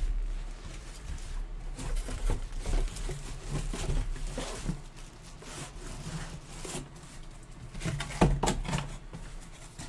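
Handling noise of a plastic-wrapped football helmet and its cardboard display box: the plastic crinkles and the cardboard scrapes and bumps as the helmet is set into the box, with a louder knock about eight seconds in.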